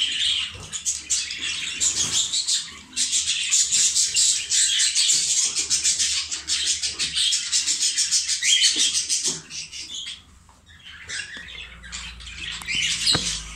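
Budgerigars chattering and chirping in a rapid, continuous stream. The chatter drops away briefly about ten seconds in, then picks up again.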